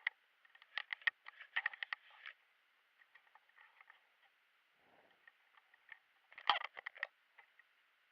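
Irregular clusters of sharp clicks and snaps: a quick run of them in the first two seconds and another tight cluster about six and a half seconds in, with quiet gaps between.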